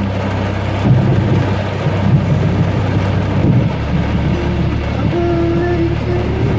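Thunder rumbling for a few seconds from about a second in, over a steady low drone of the rainstorm around the car.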